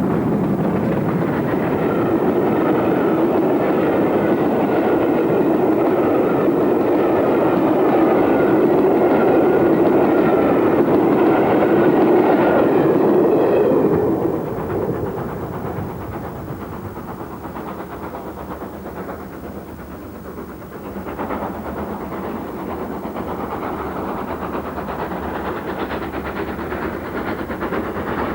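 GWR Castle-class steam locomotive Nunney Castle, a four-cylinder 4-6-0, running with a passenger train. The sound is loud and steady, then drops off sharply about halfway through and carries on quieter as the train goes by.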